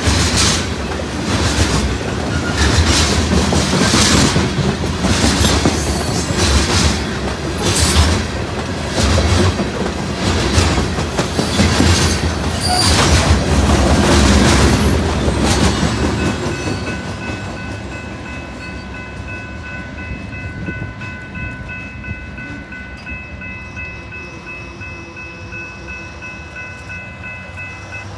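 Loaded grain train rolling past, its wheels clacking in a repeating pattern over the rail joints. About sixteen seconds in the sound fades as the train moves away, and a steady high-pitched tone is left ringing.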